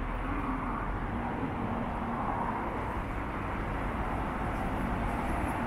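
2013 Honda CBR1000RR's inline-four engine running steadily at idle through a US Yoshimura slip-on muffler.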